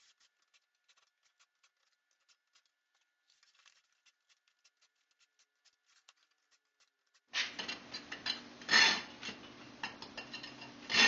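Hacksaw cutting shallow grooves in a soft insulating firebrick: faint, light scratching strokes. About seven seconds in, the sound steps up to a louder background with a steady low hum and two sharp knocks, the loudest a couple of seconds apart.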